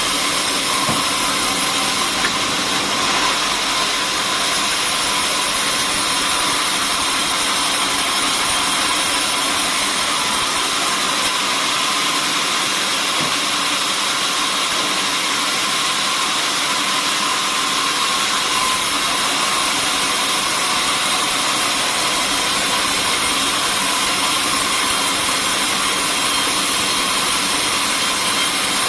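Sawmill machinery running steadily: a loud, even, hissing noise with a constant faint whine and no changes.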